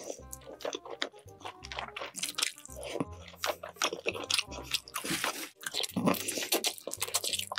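Close-miked mouth sounds of biting into and chewing braised chicken adobo, with wet, sharp crackles from the meat and skin. Background music with a repeating bass line runs beneath.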